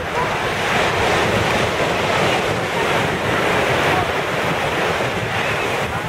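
Ocean surf breaking on the beach, a steady rush that swells a little through the middle, with wind buffeting the microphone.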